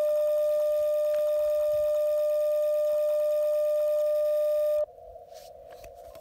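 Icom IC-705 transceiver's steady CW sidetone, one unbroken mid-pitched beep, while it sends a tuning carrier through the mAT-705Plus automatic antenna tuner on 10 meters. The tone cuts off suddenly near the end as the tune finishes, leaving faint receiver hiss.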